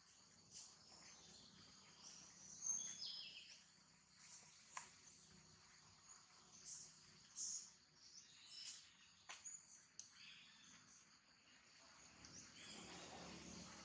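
Faint outdoor ambience of scattered high bird chirps, with a falling call about three seconds in and a few sharp clicks over a soft hiss that grows near the end.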